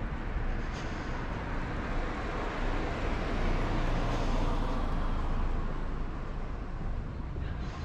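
Street traffic noise: a vehicle passing by, its rush swelling and fading around the middle, over a steady low rumble.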